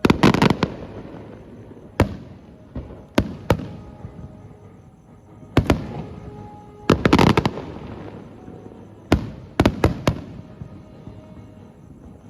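Aerial firework shells bursting with sharp bangs and rolling echoes, heard from about 390 m away. The bangs come singly and in quick clusters, the densest right at the start and about seven seconds in.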